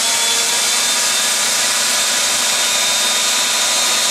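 Handheld electric drill running steadily at speed with a high motor whine, spinning a bundle of wires clamped in its chuck to twist them into a cable.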